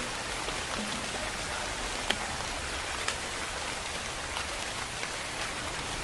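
Steady rain falling, an even hiss with a few sharper drop ticks, the clearest about two seconds in.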